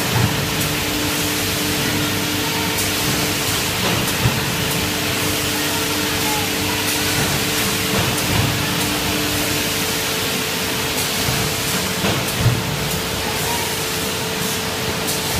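PS foam lunch box making machine running on the factory floor: a loud, steady mechanical hiss with a constant hum underneath and a few short knocks from the machine's moving parts.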